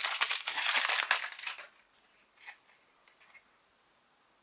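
Foil wrapper of a LEGO Ninjago trading-card booster pack crinkling as it is torn open, dense crackle for about a second and a half, then only a few faint ticks as the cards are handled.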